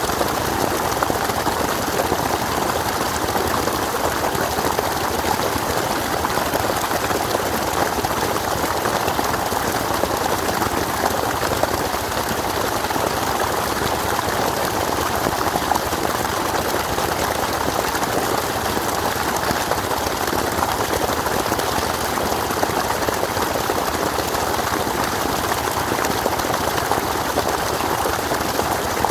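Flowing water rushing in a steady, unbroken noise.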